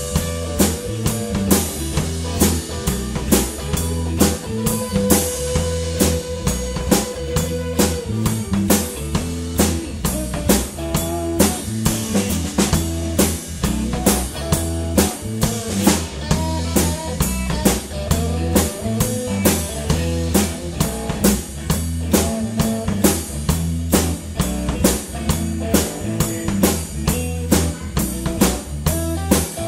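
Live blues-rock band playing an instrumental stretch: a driving, steady drum-kit beat with bass and electric guitar, and blues harmonica playing held and wailing notes over the top.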